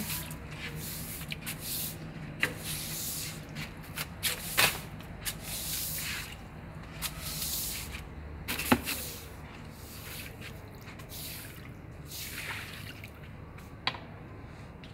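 A broom sweeping sand across a tiled floor in repeated hissing swishes, with a few sharp knocks, the loudest nearly nine seconds in.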